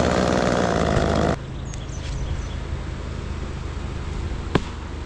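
Chainsaw running hard, cutting off abruptly about a second and a half in. A quieter steady engine hum carries on underneath, with a single sharp click near the end.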